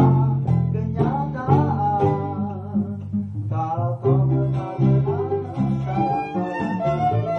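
Keroncong ensemble playing: acoustic guitar with the small cak and cuk strumming, plucked bass notes underneath, and a wavering melody line on top.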